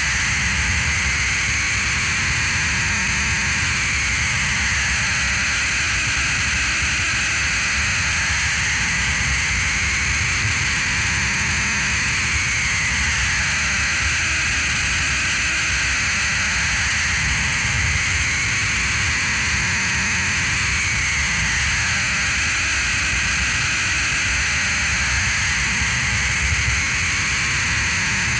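Droning experimental noise score: a steady hiss over a low rumble, with a band in the middle that slowly sweeps up and down every several seconds.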